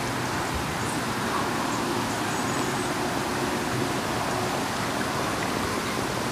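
Steady outdoor background noise: an even hiss with a faint low hum underneath, no distinct events.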